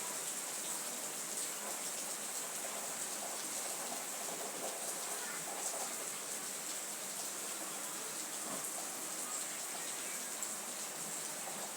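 Steady rain falling, an even hiss with faint scattered drops.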